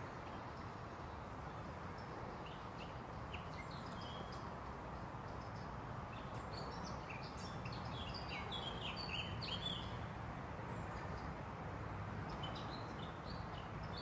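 Birds chirping and singing: scattered short, high calls, busiest in the middle, over a steady low background rumble of outdoor noise.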